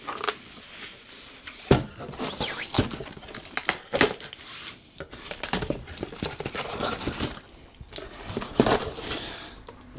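Cardboard shipping box being cut and pulled open with a knife: the blade slices through packing tape and the flaps scrape and rustle, with a few sharp knocks of the box being handled.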